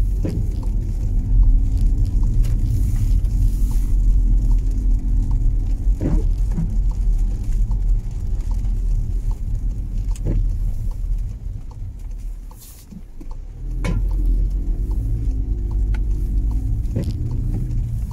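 Inside a car driving on wet roads in the rain: a steady low engine and tyre rumble with a sharp click every few seconds and a faint regular ticking. The rumble drops away about two-thirds of the way through as the car slows at traffic lights, then builds again as it pulls away.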